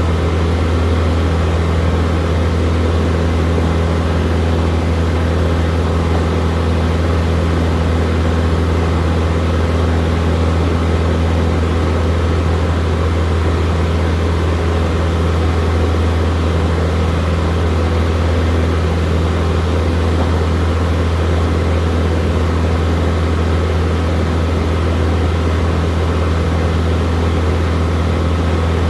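Steady drone of a single-engine light aircraft's piston engine and propeller, heard inside the cockpit in level flight.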